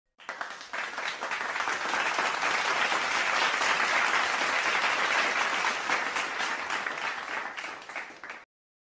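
Crowd applauding: many hands clapping at once, swelling in over the first couple of seconds, then tapering off and stopping shortly before the end.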